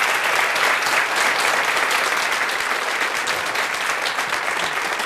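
Studio audience applauding steadily, many people clapping at once.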